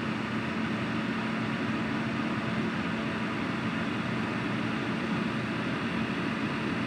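Comfort Zone CZ-488 tower space heater's blower fan running steadily, an even rushing of air with a constant low hum.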